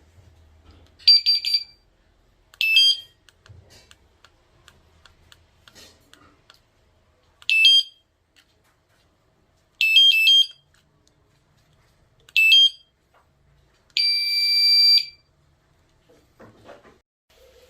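Aftermarket electric-scooter alarm unit's electronic beeper chirping as it is worked from its remote. A quick cluster of chirps comes about a second in, single chirps follow, and a few quick chirps come near the middle. A steady beep about a second long, growing louder, comes near the end.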